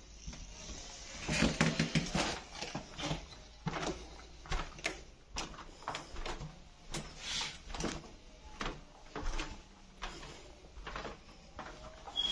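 Footsteps on a littered carpet floor and wooden doors being pushed open in an empty building. A cluster of knocks comes about a second in, then steps at an uneven walking pace, and a short high squeak near the end as a door swings open.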